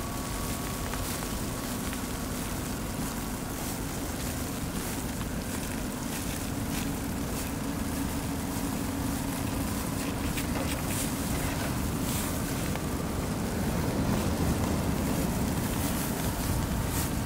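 Steady city street ambience: a low rumble of traffic and engines under a soft hiss, growing slightly louder near the end.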